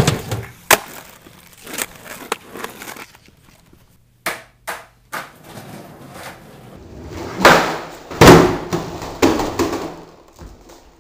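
Skateboard deck and wheels clacking against a wooden launch ramp and pavement in a string of sharp knocks. Later come a few louder, heavier crashes as a skater stomps on the board on a concrete floor and falls.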